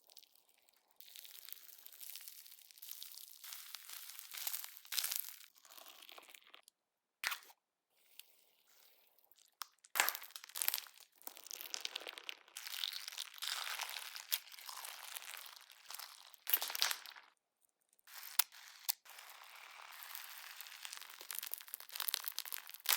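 Hands squishing, stretching and poking slime, giving crunchy, crackling sounds. The sound comes in short segments broken by abrupt silences, with a few sharper snaps.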